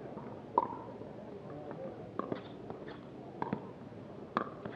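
Pickleball rally: paddles hitting a plastic pickleball, a series of sharp pocks at irregular intervals, some in quick pairs. Background voices murmur under them.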